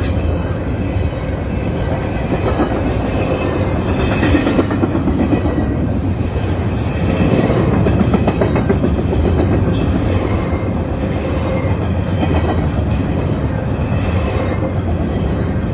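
Intermodal freight train's double-stack container cars rolling by: a steady rumble of steel wheels on the rails, with clacking over the rail joints.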